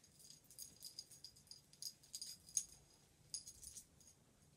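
Faint metal bracelets jingling in an irregular run of light clinks as the hands handle hair.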